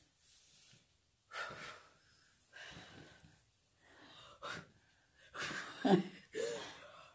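A person breathing audibly, several breaths in a row, from someone who is sick. A short voiced sound comes near the end.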